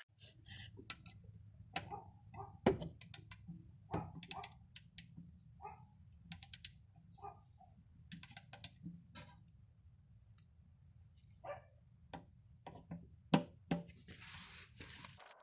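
Irregular metallic clicks and knocks from a hand wrench tightening the transmission oil pan bolts, some coming in quick runs, over a steady low hum. A brief hiss comes near the end.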